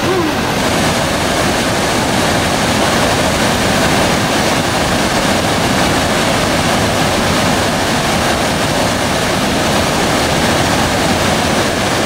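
Whitewater pouring over a small river waterfall: a steady, loud rush of water.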